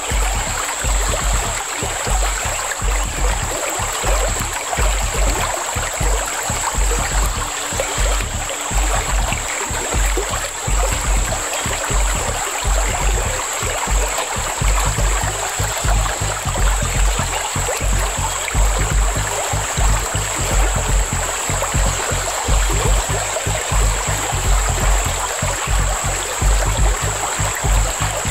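Background music with a steady bass beat over the rushing of shallow river water through riffles, with a steady high-pitched tone running throughout.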